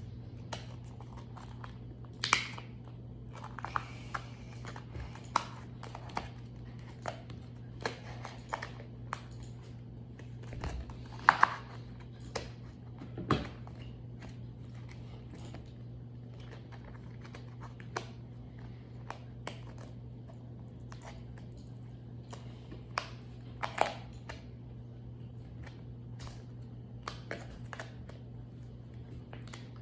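Slime being squeezed and worked by hand, giving scattered short wet clicks and crackly pops at irregular intervals, over a steady low hum.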